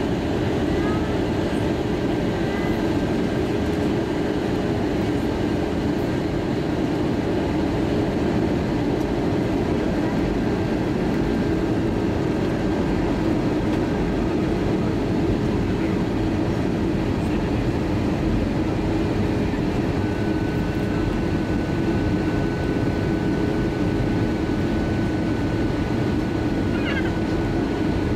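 Steady cabin noise inside an Airbus A320-232 descending toward landing: the low drone of its IAE V2500 turbofan engines and rushing airflow, with a constant hum underneath. A faint thin whine joins about two-thirds of the way through.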